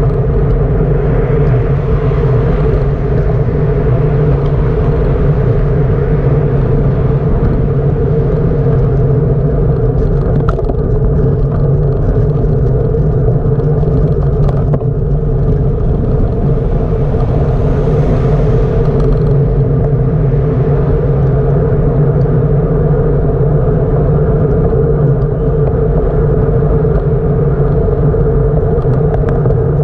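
Steady low rumble of wind and road noise on the microphone of a camera carried along on a moving bicycle, with a constant hum beneath it.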